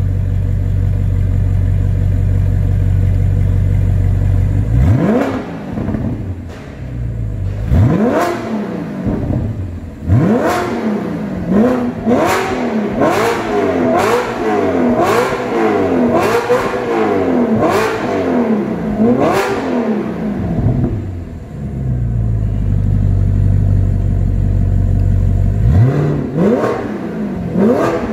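Audi R8 with an Armytrix titanium valvetronic exhaust idling steadily, then revved in a string of about a dozen quick blips, each rising and falling in pitch. It settles back to idle for several seconds and is revved again near the end.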